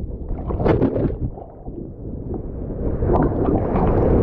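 Ocean surf churning around the person in the water, with a wave surging in that builds from about halfway through, and wind buffeting the microphone.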